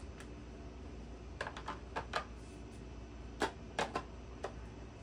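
About nine light, sharp clicks at irregular spacing, a quick group of five near the middle and a sparser group of four later on.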